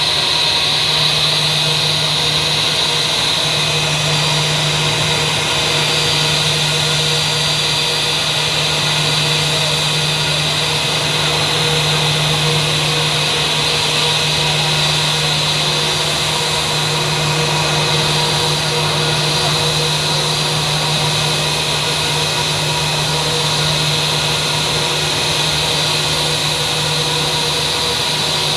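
Steady jet airliner cabin noise: an even rushing hum from the engines and airflow, with a low drone and faint steady tones.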